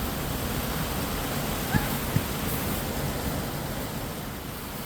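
Small waterfall running, a steady rush of falling water. Two short knocks sound about two seconds in.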